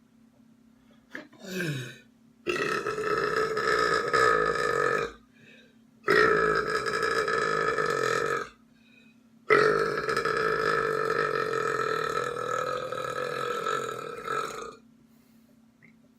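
Deliberate loud, long belches from a person: a short croak falling in pitch, then three long, steady belches, each about two and a half seconds and the last about five seconds.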